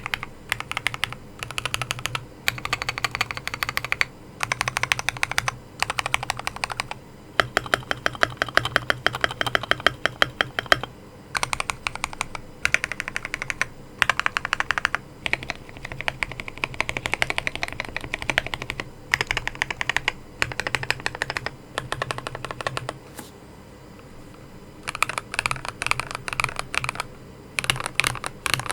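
Typing on an Akko Mod005 mechanical keyboard fitted with Akko CS Jelly White linear switches: rapid runs of keystrokes in bursts with short pauses between, and a longer pause a little over three-quarters of the way through.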